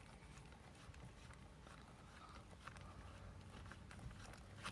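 Near silence, with a few faint, short plastic clicks and ticks from the steering wheel's airbag wiring connectors being handled.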